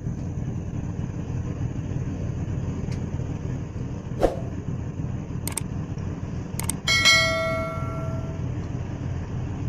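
Tugboat's diesel engine droning steadily as it moves a barge along the river. A few sharp clicks come in the middle, and about seven seconds in a bell-like ding from a subscribe-button sound effect rings out and fades over a second or so.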